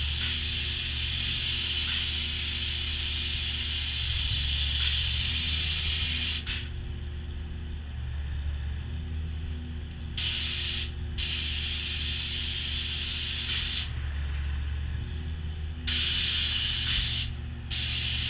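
Plural-component spray gun hissing as it sprays epoxy onto the manhole walls. One long spray of about six seconds, then several shorter bursts as the trigger is pulled and released. A steady low machine hum runs underneath.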